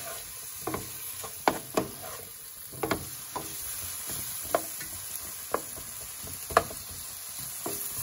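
Vegetables and olives sizzling in oil in a metal frying pan while a plastic spatula stirs them. The spatula scraping and tapping on the pan gives irregular sharp clicks over the sizzle, the loudest about a second and a half in and about two-thirds of the way through.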